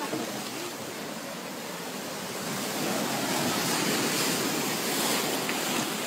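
Storm surf and foaming seawater surging up the beach and over a paved patio: a steady rushing wash that grows a little louder partway through.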